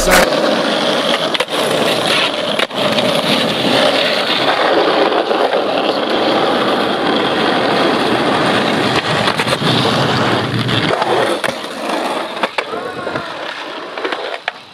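Skateboard wheels rolling over rough asphalt: a steady, gritty rolling noise with a few short knocks. It drops quieter about eleven seconds in.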